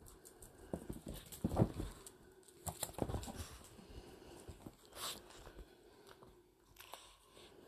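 Small dogs clambering up padded pet stairs and moving about on a bed: faint, irregular soft thumps and rustling, busiest in the first few seconds.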